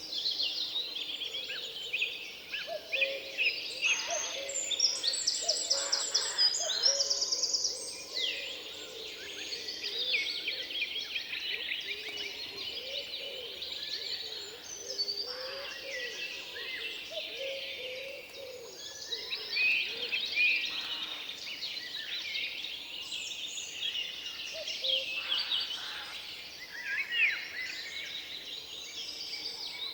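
Forest ambience full of songbirds: several birds sing and call at once, with high chirps and trills overlapping throughout. The chorus is busiest and loudest a few seconds in.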